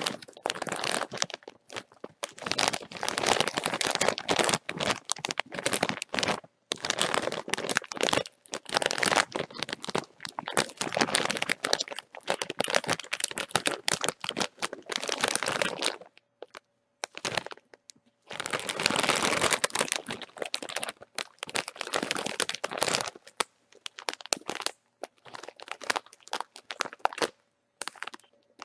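Bag of chips crinkling and crackling as it is handled and squeezed, in long bursts broken by a few short pauses.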